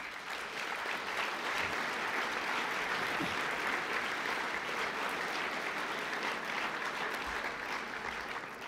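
Audience applauding, a steady dense clapping that begins to fade near the end.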